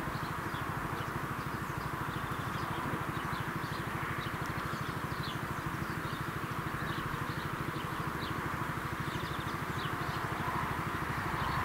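AŽD ZV-01 electronic level-crossing bell ringing with a fast, even, repeating beat while the barriers are down, the warning that a train is approaching.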